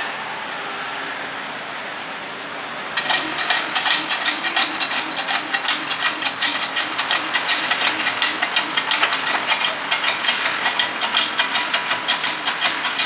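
Hydraulic shop press pumping, a steady hiss for the first few seconds and then a rapid, even chatter, as the ram presses a new pinion bearing down onto a Dana 30 pinion gear.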